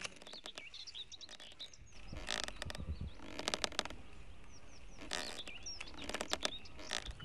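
Small birds chirping and twittering, with four or so short runs of rapid dry clicks spread through the stretch.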